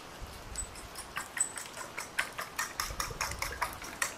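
Metal spoon beating raw eggs in a glass bowl: a rapid run of light clicks as the spoon strikes the glass, faint at first and then about five a second from about a second in.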